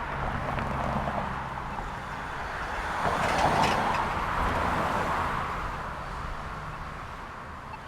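City street traffic: motor vehicles running and passing, with a steady low engine hum. One passing vehicle swells loudest about three seconds in, and the traffic thins toward the end.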